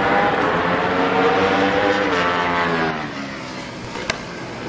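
Motorcycle engine at high revs going past, its pitch falling as it passes, then fading off. A single sharp click about four seconds in.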